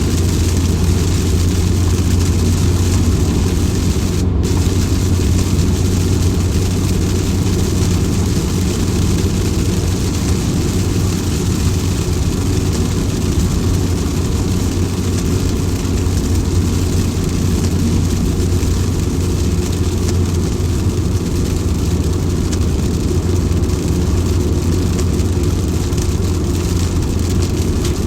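Steady, unbroken rain noise with a constant low hum beneath it.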